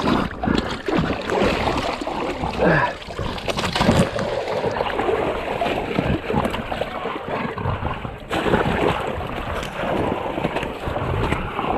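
People wading through deep water, the water sloshing and splashing around them with irregular surges as they push through.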